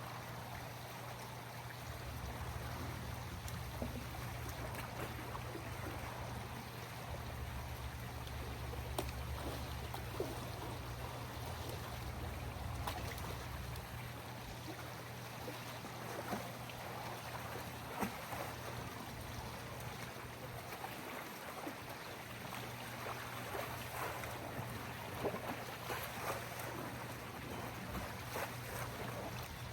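Pool water sloshing against a steady low hum, with scattered light knocks and clicks.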